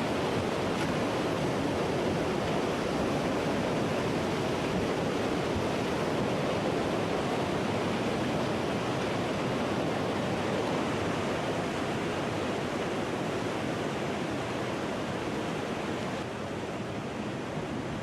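Steady rushing noise of tsunami water surging, easing slightly near the end.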